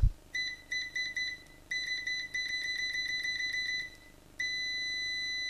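Digital multimeter's continuity beeper sounding as the test leads make contact: one high beep tone, first broken into about five short beeps, then a long beep of about two seconds with brief dropouts, then a steady unbroken tone from about two-thirds of the way in.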